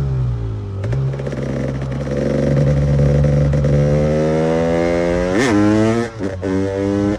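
KTM EXC 300 two-stroke enduro motorcycle engine under throttle: the pitch dips about a second in, then climbs steadily to a high rev about five and a half seconds in and drops off sharply, followed by a few short throttle blips near the end.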